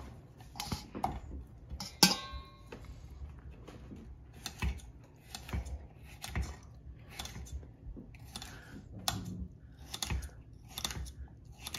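A kitchen knife dicing on a cutting board: separate knocks, about one or two a second and not evenly spaced, with one sharper clink that rings briefly about two seconds in.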